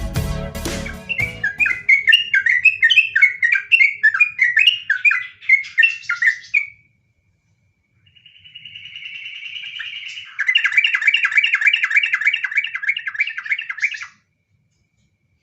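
Yellow-vented bulbul (trucukan) singing: bubbling phrases of quick notes, then after a short pause a buzzy chatter that breaks into a fast run of about four repeated notes a second, ending near the end. Electronic intro music fades out about a second in.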